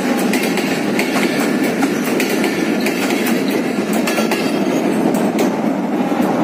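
Passenger train coaches passing close at speed: a loud, steady rumble of steel wheels on rails, with many sharp irregular clicks and clanks as the wheels run over rail joints.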